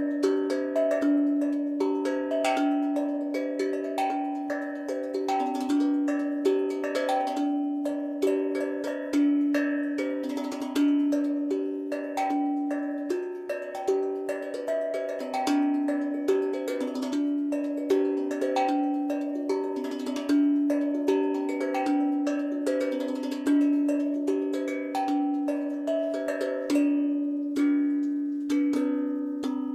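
Logik drum, a steel handpan, played with the hands: a repeating melodic pattern of ringing metal notes, each struck note sustaining and overlapping the next, over a low note sounded again and again.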